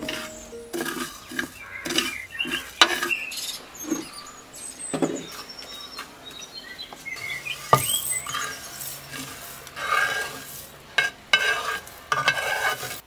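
A wooden spatula stirring and scraping coriander seeds in a clay pan as they dry-roast, with the dry rattle of the seeds in irregular strokes. Near the end the roasted seeds are tipped from the clay pan into a wooden mortar, with a denser rattle and scrape.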